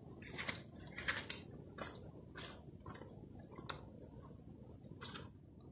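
Footsteps on the loose stones and pebbles of a dry stream bed, an uneven step about every half second.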